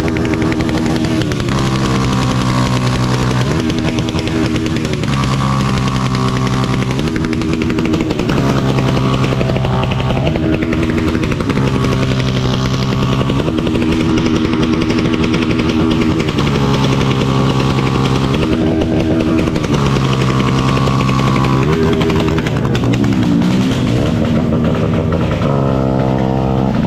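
Motorcycle engine revved over and over, each time held at a steady high pitch for a second or two and then dropped back before the next rev.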